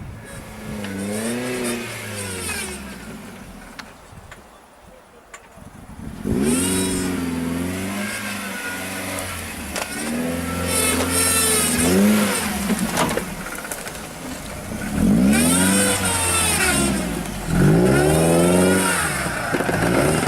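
Off-road 4x4 engine revving up and down again and again, in a run of long rises and falls in pitch. There is a quieter lull a few seconds in, and the revs are loudest in the second half.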